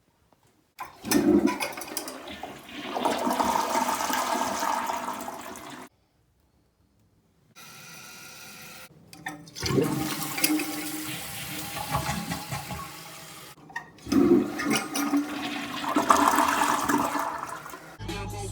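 Toilet flushing three times in a row. Each flush starts suddenly with a loud gush and settles into a steady rush of water.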